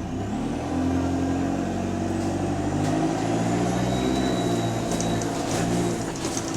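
Bus engine pulling away and accelerating, its note stepping up in pitch, with a thin high whine above it; it eases off near the end. The bus is running with an exhaust leak.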